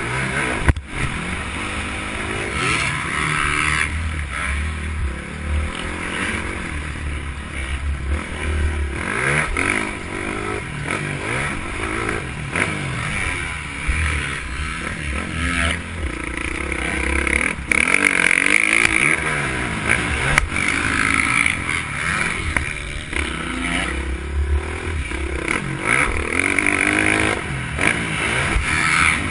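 Motocross bike engine heard close up from an onboard GoPro, its revs rising and falling again and again as the bike accelerates, shifts and slows around a dirt track. There are a few sharp knocks, one about a second in and one near 20 s in.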